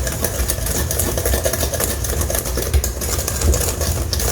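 Danish dough whisk mixing a thick batter in a bowl, with rapid, irregular scraping and clicking against the bowl over a continuous low rumble.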